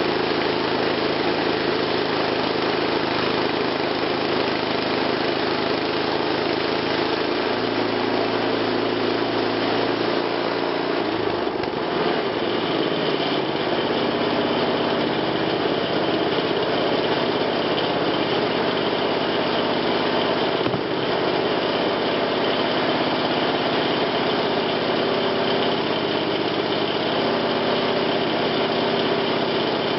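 Wood-Mizer LT20 portable sawmill's engine running steadily, its tone shifting about twelve seconds in, with a short click there and another near twenty-one seconds.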